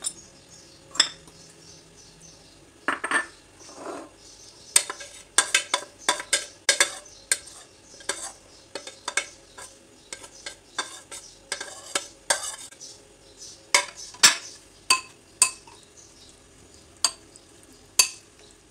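A metal spoon clinking and scraping against a glass bowl in many irregular taps as chopped vegetables and spices are tipped in and stirred into a thick tomato sauce.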